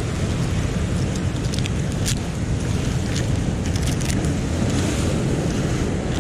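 Steady rumble of wind on the microphone and nearby surf, broken by several sharp clicks of mussel shells clacking together as clumps are pulled off the rock by gloved hands and dropped into a plastic bucket.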